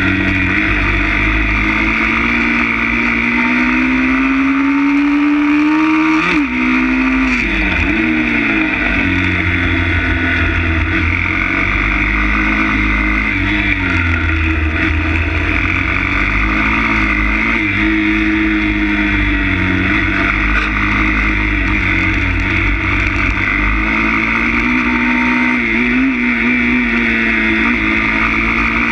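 160 cc pit bike's single-cylinder four-stroke engine, heard from onboard while riding. The revs climb steadily, drop sharply about six seconds in, then rise and fall again and again as the bike accelerates and slows.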